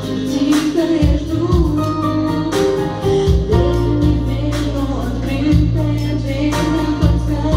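A woman singing a song into a microphone over an electronic keyboard accompaniment, with a steady bass line and a beat about once a second.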